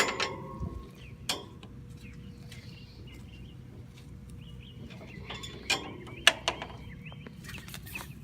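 Scattered clicks and knocks of tools and equipment being handled and moved, with a few sharp taps, the loudest near the start and in a cluster a little after halfway.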